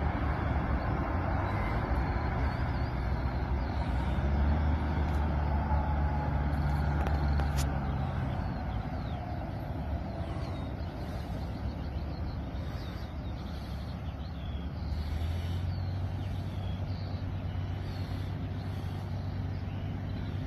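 Airbus A340-312's four CFM56-5C jet engines heard at a distance as the airliner rolls out after landing, a low rumble that swells a few seconds in and then eases off.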